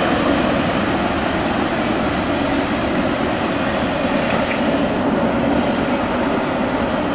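Steady noise of a double-stack container train's cars rolling away on the rails, with a few faint clicks.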